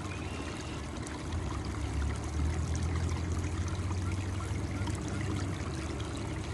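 Small creek trickling over rocks, a steady running of water.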